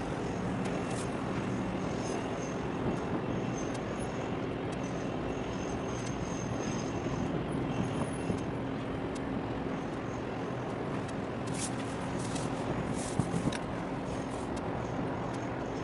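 Steady engine drone with a low hum under a constant wash of noise, with a few faint ticks and a brief knock about thirteen seconds in.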